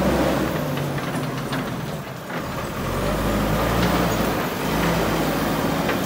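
JCB 3DX backhoe loader's four-cylinder diesel engine running as the machine drives, steady and loud, easing off briefly about two seconds in and again past four seconds before picking up.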